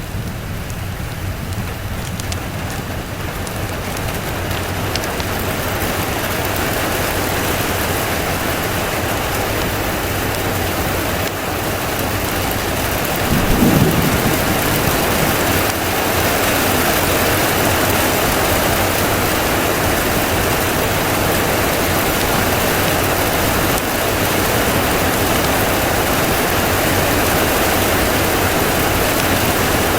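Steady heavy rain, building a little over the first several seconds, with a brief low rumble of thunder about halfway through.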